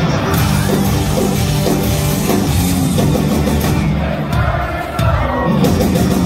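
Southern rock band playing live and loud through a concert PA, with drums and amplified guitars, and a crowd cheering and singing along.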